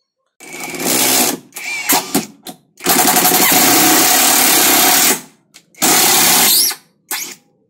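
Mollar CIDR 20351 cordless impact driver driving a long screw into a wooden block in several runs on the trigger: a run of about a second, two short bursts, a long run of about two seconds, then a shorter run and a brief burst near the end.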